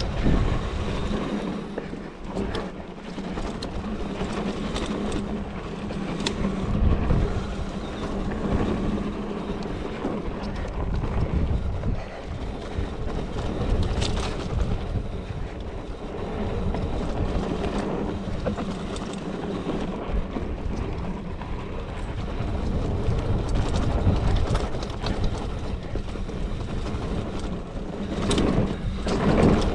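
Mountain bike rolling down a dirt flow trail: wind rushing over the microphone and tyres on packed dirt, with a few sharp rattles as the bike hits bumps.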